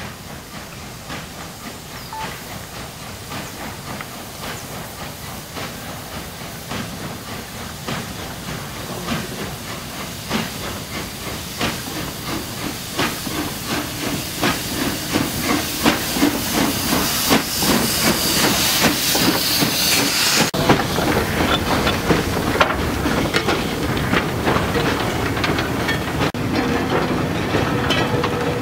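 Small narrow-gauge steam locomotive approaching slowly, its exhaust chuffing in a steady beat that grows louder as it comes near. A little past halfway a loud hiss of steam joins in, then cuts off suddenly.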